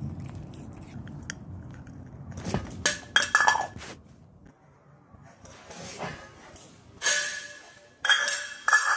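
A small dish clinking and clattering as a dog knocks it about while eating from it: a cluster of sharp knocks with a short ring about three seconds in, then more about a second apart toward the end.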